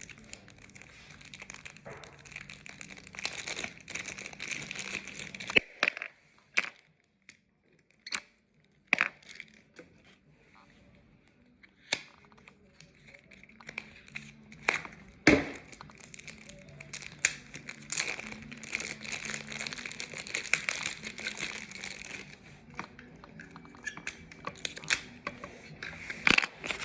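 Packaging of home-security devices being unboxed: crinkling and tearing of wrappers, with many sharp snaps and clicks as parts are pulled out. There is a quieter lull a quarter of the way in, and the loudest snap comes a little past the middle.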